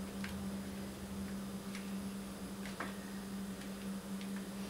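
Soft, irregular taps and faint clicks as a bare, paint-covered foot dabs onto stiff paper laid over plastic sheeting, under a steady low hum.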